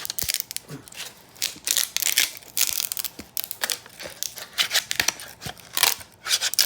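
3D-printed PLA chain-mail fabric being peeled and flexed off its print raft, crackling and snapping in quick, irregular bursts.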